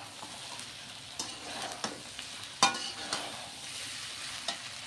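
Metal spatula stirring and scraping cooked rice against a steel wok as it is mixed into the mango masala, over a light sizzle from the pan. A sharp clink of the spatula on the pan's side about two and a half seconds in is the loudest sound.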